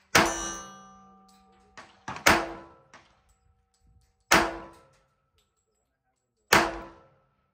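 Four single shots from a Smith & Wesson SW1911 .45 ACP pistol, slow aimed fire about two seconds apart. Each shot is a sharp crack with a decaying echo, and the first is followed by a metallic ringing that dies away over about a second.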